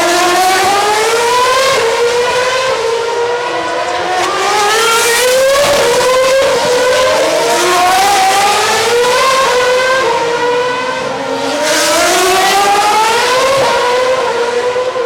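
Formula One cars' 2.4-litre V8 engines at high revs. Their pitch climbs in steps through the upshifts as they accelerate away, and dips twice as one car's sound gives way to the next.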